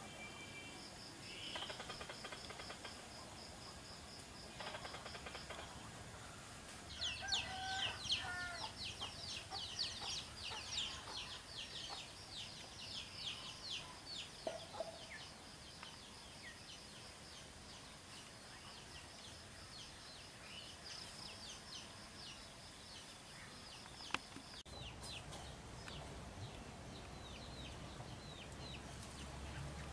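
Faint outdoor animal calls: a rapid run of high chirping notes for several seconds, starting about a quarter of the way in, with a few lower calls, over a steady high insect-like buzz. One sharp click near the end.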